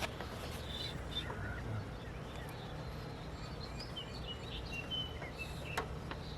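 Small birds chirping over a steady low background rumble, with a couple of sharp clicks, one at the start and one near the end.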